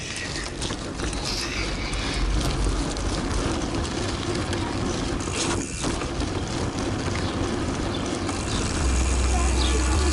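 Mountain bike rolling along asphalt: steady rushing wind noise on a bike-mounted microphone with tyre hum, and many small rattles and clicks from the bike.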